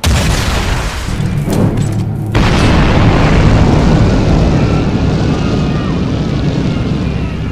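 Film sound-effect explosion: a sudden loud blast, then a second, bigger blast about two and a half seconds in, followed by a long rumble of burning that slowly fades.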